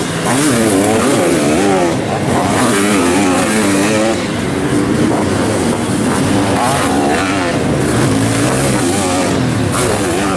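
Several sidecar motocross outfits' engines revving hard, the pitch rising and falling over and over as the riders open and close the throttle.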